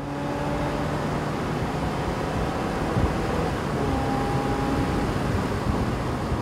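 Wind and road noise rushing over a camera mounted low on the outside of a moving car, with a faint steady engine note underneath at a constant cruising speed. One brief knock about halfway through.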